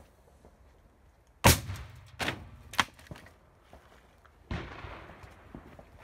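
Dum Bum firecrackers exploding inside a washing machine. A loud bang comes about a second and a half in, then two sharp cracks within the next second and a half. Another bang near the end trails off into about a second of rushing noise.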